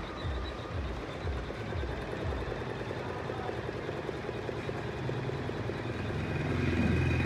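Janome 11000 embroidery machine stitching a design, its needle running in a fast, even rhythm of many stitches a second. A louder low hum swells near the end.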